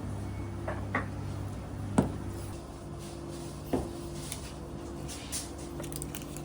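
Kitchen work: a handful of separate knocks and clacks, like dishes, utensils or cupboard doors being handled, over a steady machine hum.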